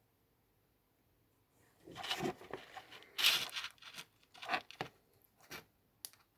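Rustling and scraping handling noise, a string of irregular short bursts starting about two seconds in and ending with a brief click near the end: the earphones being handled and rubbed up close.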